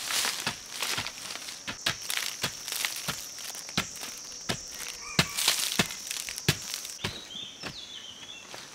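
Wooden digging stick striking and scraping into loose soil in quick repeated strokes, about two a second.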